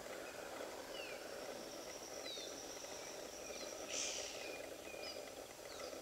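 Bush ambience: scattered short falling bird whistles over a steady low hiss, with a brief rasping burst about two-thirds of the way in and a thin, high, steady tone after it.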